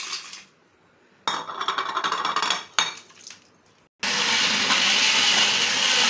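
Ice rattles into a glass blender jar for about a second and a half, followed by a single sharp clack. About four seconds in, an electric countertop blender starts and runs steadily, blending fruit and ice.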